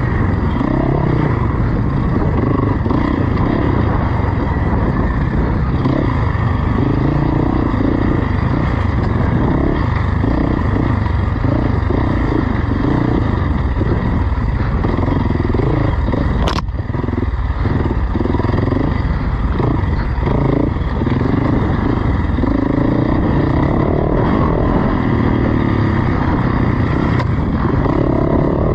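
Off-road motorcycle engine running under load, its revs rising and falling over and over. A single sharp knock comes a little past halfway.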